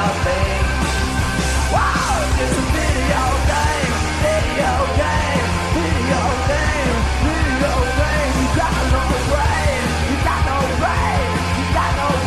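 Punk rock band playing a demo recording: electric guitar, bass and drums, with yelled vocals.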